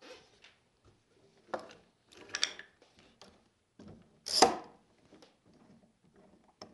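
Bar clamps and wooden workpieces being handled on a workbench: a few separate clicks and knocks, a short rattling cluster about two seconds in, and a louder scraping clunk a little past four seconds.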